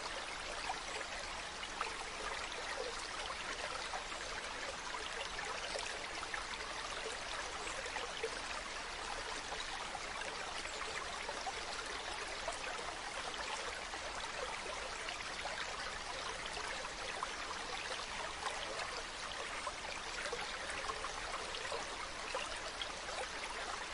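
Mountain stream running over rocks: a steady, even rush of flowing water with small splashes and trickles throughout.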